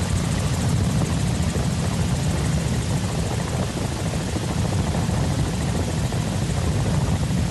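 Loud, steady drone of an aircraft's engine and rotor or propeller, heard from on board the aircraft, with a fast, even flutter.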